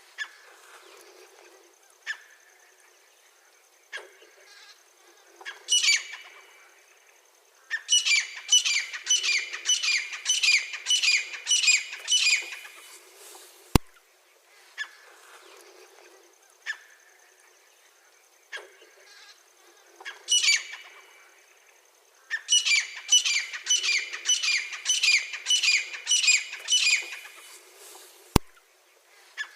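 Francolin (teetar) calling: a few single notes a couple of seconds apart, then a fast run of about ten ringing notes, roughly two a second. The sequence plays twice, with a sharp click where it starts over.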